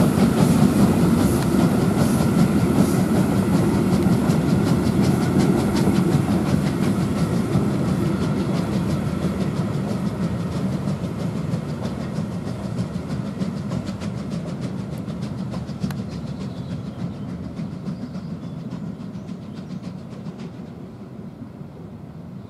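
Steam-hauled passenger train moving away: ČSD class 555.0 steam locomotive (a rebuilt German class 52 'Kriegslok') going by, then its coaches rolling past with wheels clicking over the rail joints. The sound fades steadily as the train recedes.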